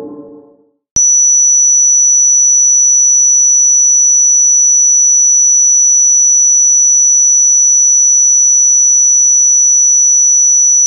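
Ambient tape-loop drone fading out, then about a second in a loud, steady, high-pitched pure electronic tone starts abruptly and holds without change.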